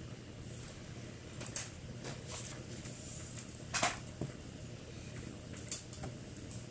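A steady low hum with a handful of short, faint knocks and rustles; the clearest knock comes a little before the middle.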